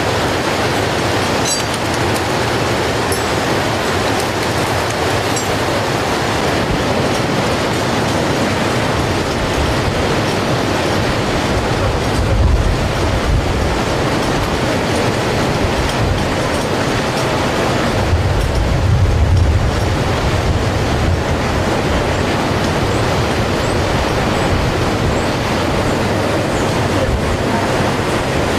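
Steady rush of flowing river water, with gusts of wind buffeting the microphone now and then.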